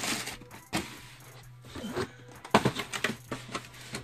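Handling noise as sneakers are moved around: a scattering of light knocks and clicks, the loudest a quick cluster about two and a half seconds in, over a faint steady hum.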